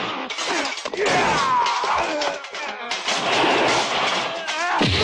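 Movie fight-scene sound effects: a rapid run of hits, thuds and smashing impacts, with fighters yelling and grunting. One long falling yell comes about a second in, and another rising cry comes near the end.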